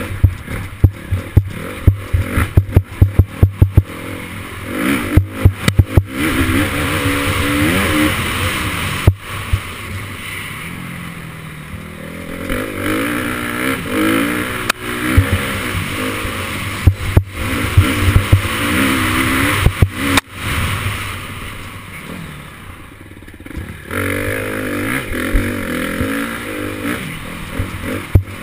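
Dirt bike engine revving up and down as it is ridden along a trail, easing off briefly about three-quarters of the way through. Frequent sharp knocks and clatter run through it, thickest in the first few seconds and near the end.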